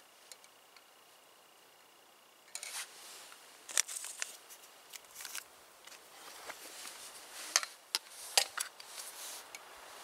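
Quiet at first, then from about two and a half seconds in a string of sharp clicks, scrapes and rustles: camp cookware being handled, a plastic lid set down and a utensil at a mug, with clothing rustling.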